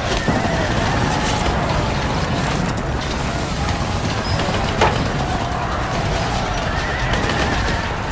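Medieval battle background sound effects: a steady, dense din of combat with wavering cries, horses neighing and scattered clashes, and one quick upward sweep about five seconds in.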